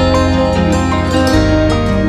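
Background music: a melody of short pitched notes over a held bass note that changes about a second and a half in.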